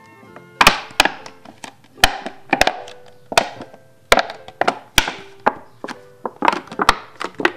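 Thin plastic from a cut bottle crackling and popping as hands bend and fold it in half, a string of sharp, irregular cracks. Soft background music runs underneath.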